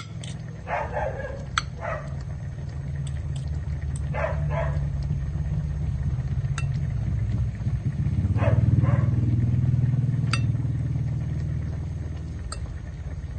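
Metal spoon and fork clinking against a china plate as flesh is picked off a boiled fish: sharp single clicks a second or a few seconds apart. Under them runs a steady low hum that swells about two-thirds of the way through and then eases, with a few short harsh calls in the background.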